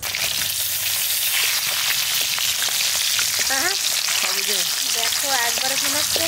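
Pieces of katla fish rubbed with salt and turmeric sizzling steadily as they fry in hot oil in a metal kadai, turned with a wooden spatula.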